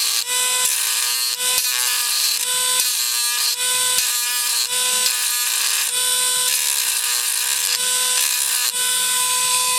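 Dremel rotary tool running at high speed with a steady high whine, grinding into the metal of a die-cast toy car; the grinding swells and fades as the bit is pressed in and eased off.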